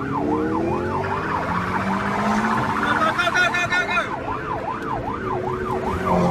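Police car siren in a fast rising-and-falling yelp, about two to three wails a second. For a few seconds in the middle it changes to a quicker, denser warble, then goes back to the yelp. Under it a car engine rises in pitch as it accelerates.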